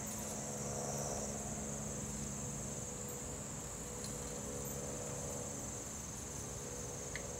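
Steady, high-pitched chorus of insects singing, with no break.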